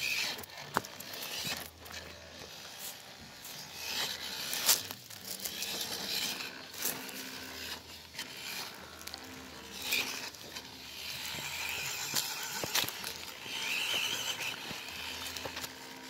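MN99S remote-control crawler driving over rough dirt: its small electric motor and gears whir in spurts, while the tyres crunch and crackle over twigs, leaves and soil with many sharp clicks.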